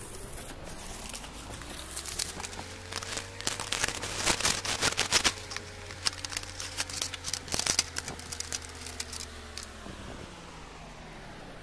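Bubble wrap and plastic packaging crinkling and crackling as a boxed toy figure is unwrapped, its box opened and the figure taken out of its plastic tray; the crackles are thickest in the middle, over a low steady hum.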